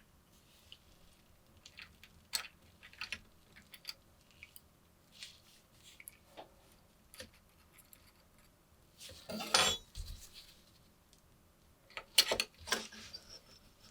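Small metal pieces clinking and tapping as they are handled: scattered light clicks, a longer, louder rattle about nine and a half seconds in, and a few sharp clicks about twelve seconds in.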